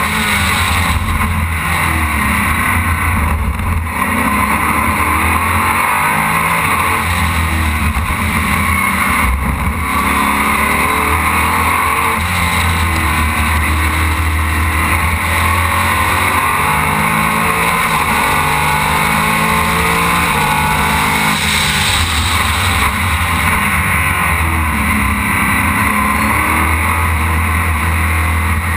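Aquila CR1 race car's engine heard from an onboard camera at racing speed, its pitch climbing and dropping over and over as it accelerates, changes gear and slows for corners, over heavy wind noise on the microphone.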